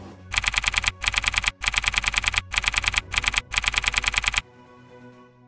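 Typing sound effect: rapid keystroke clicks, about ten a second, in several short runs with brief gaps, stopping abruptly about four seconds in.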